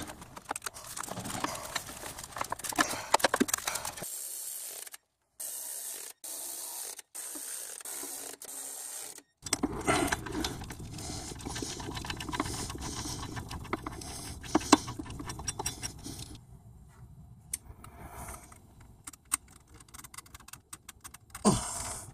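Metal clicking and rattling from hand work on an engine's timing-belt area: bolts, a hand tool and metal parts being handled. The sound stops and starts abruptly several times.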